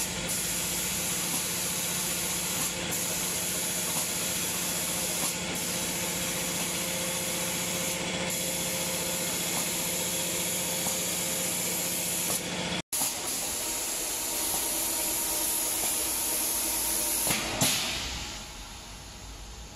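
Automatic spray guns of a cabinet-door painting line spraying paint with a steady compressed-air hiss over a low machine hum. The hiss dips briefly about every two and a half seconds and fades near the end.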